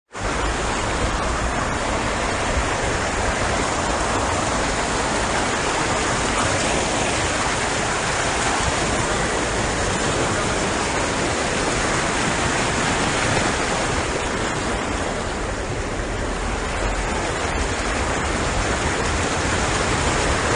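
Steady loud rush of floodwater churned aside by a vehicle driving through a flooded street.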